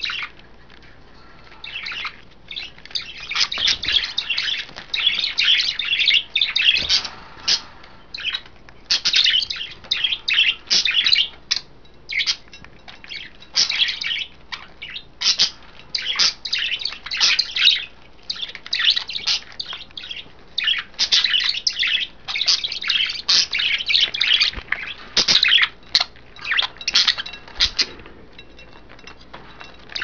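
Pet budgerigars chattering, a rapid warble of high chirps that comes in bouts with short pauses between them.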